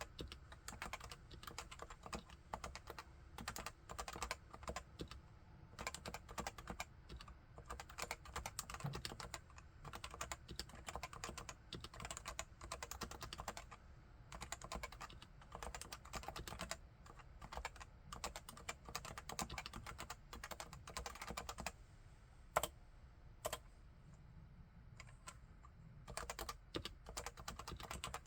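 Typing on a Leopold FC980C keyboard with 45 g Topre electrostatic-capacitive switches: a fast, steady run of soft keystrokes. The typing eases off past two-thirds of the way through, with two louder single strikes, then picks up again near the end.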